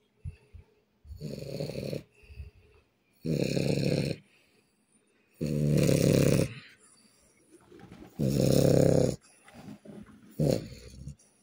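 A sleeping person snoring loudly: five rasping snores, about one every two seconds, each lasting about a second.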